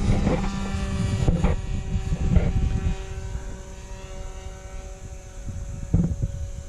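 Glow-fuel ABC model engine of an RC airplane in flight, a steady whine with its overtones that slowly fades as the plane moves away. A low rumble runs underneath, and a brief thump comes about six seconds in.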